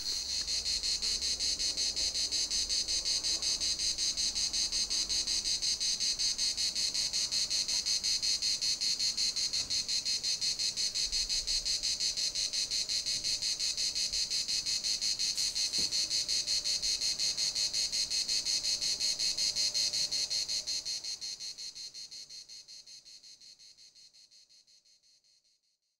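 A chorus of cicadas singing steadily with a fast, even pulsing, then fading out over the last few seconds.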